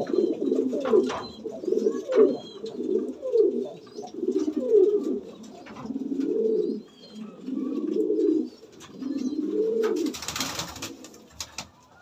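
Domestic pigeons cooing in a loft, one low coo after another. About ten seconds in there is a short burst of noise.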